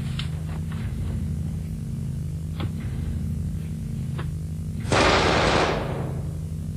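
Scattered single gunshots over a steady low hum. About five seconds in there is a louder rushing blast lasting about a second.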